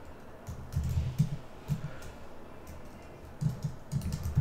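Keystrokes on a computer keyboard, typed in short bursts of clicks with a pause of about a second and a half midway.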